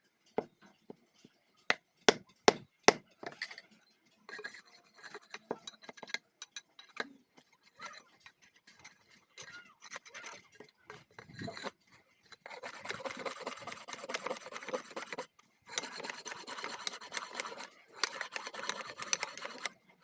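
A few sharp knocks about two seconds in, then a tool scraping and rasping at a bamboo hammer handle in long strokes, shaping it to fit the hammer head.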